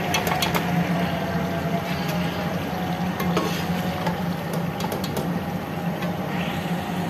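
Metal ladle scraping and clinking against a hammered aluminium pot as thick meat curry is scooped out and served into a ceramic bowl. There is a quick run of clicks in the first half second, then scattered knocks, over a steady low hum.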